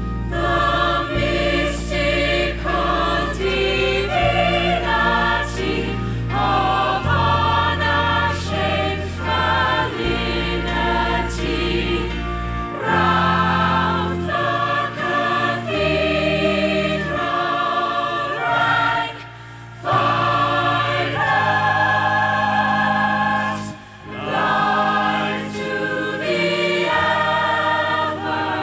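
Large stage chorus singing slow, sustained harmonies with musical accompaniment. Low held bass notes underpin the first half, then drop away, and the singing breaks off briefly twice in the second half.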